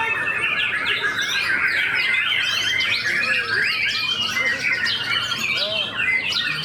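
Many caged white-rumped shamas (murai batu) singing at once on the contest poles: a dense, unbroken chorus of fast, overlapping whistles, chirps and trills.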